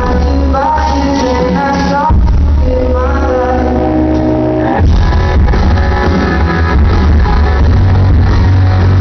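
Rock band playing live, with acoustic guitar, electric guitar, bass and drums, and singing without clear words over the first half. About five seconds in, the full band comes in louder and denser.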